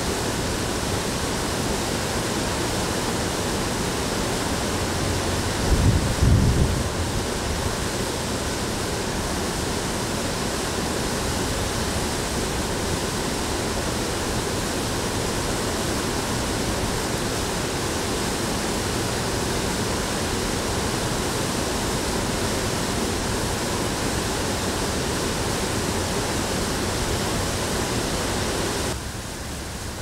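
Steady rush of falling water from a waterfall, an even hiss with no pauses. A brief low rumble comes about six seconds in. Near the end the rush drops to a quieter, duller level.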